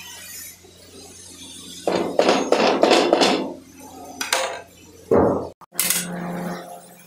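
Metal utensils clattering and scraping against metal pans and trays, in a dense run of clanks about two seconds in and a few more single clanks later.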